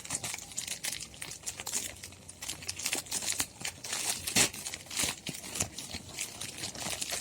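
Packaging of a Xiaomi Mi Band 4 being handled and opened: irregular rustles and sharp clicks, with one louder click about four seconds in.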